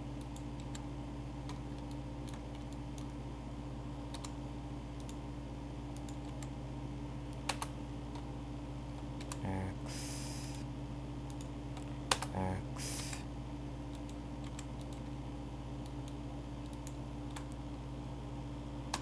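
Scattered computer keyboard and mouse clicks over a steady low hum, with two short bits of voice partway through.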